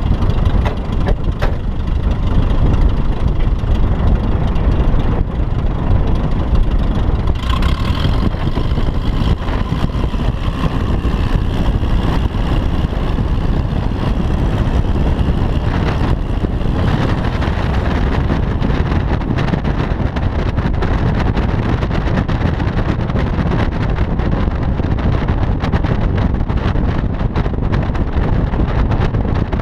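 Steady rush of wind and vehicle noise on a car driving at speed, with a Piper Cub's engine running just overhead. The higher engine sound fades a little past halfway as the plane climbs away.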